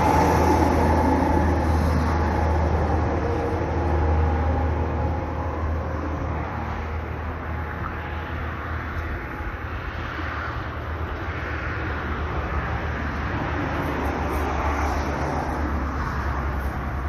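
A motor engine running steadily, a low hum under a wash of outdoor noise, easing off a little about halfway through.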